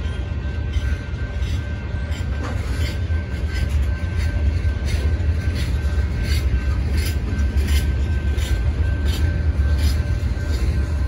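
Freight train of tank cars and hoppers rolling past: a steady deep rumble, with the wheels clicking over rail joints in a regular beat from about four seconds in.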